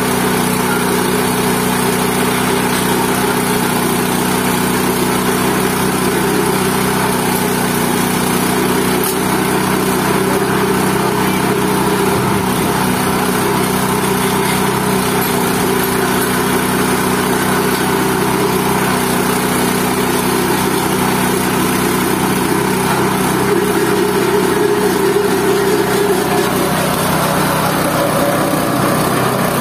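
GT-14 organic waste pulping machine running steadily, its motor humming under the churn of the grinding drum as it pulps leafy vegetable waste.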